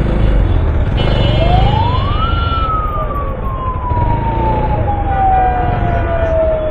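An emergency-vehicle siren close by sweeps up in pitch for about a second, then falls slowly and steadily over the next several seconds. A horn sounds briefly about a second in, and motorcycle engine and street-traffic rumble run underneath.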